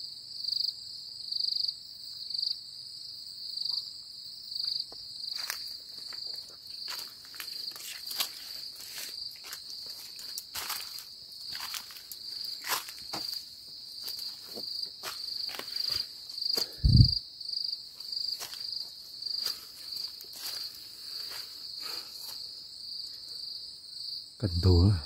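Night insects, cricket-like, chirping in a steady pulsing high trill. From about five seconds in come many short crackles and rustles, like footsteps through dry leaves and twigs, with one dull low thump partway through that is the loudest sound.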